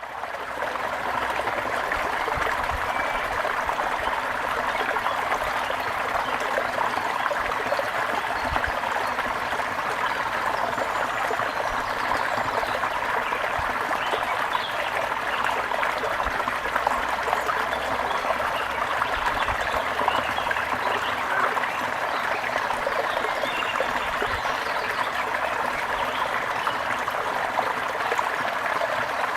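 Water running and trickling steadily like a small stream, with faint bird chirps now and then.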